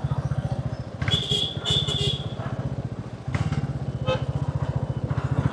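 A motorcycle engine running under way with a fast, even beat, growing louder a little past halfway through. About a second in, a high, thin tone sounds twice in quick succession.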